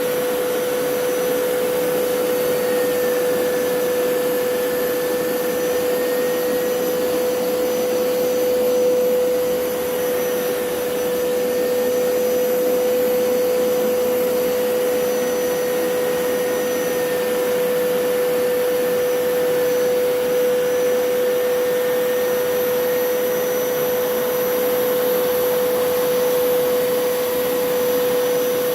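Hoover PowerScrub Elite upright carpet cleaner running steadily, its motor giving a constant hum under a rushing of air, with a faint higher whine that wavers now and then.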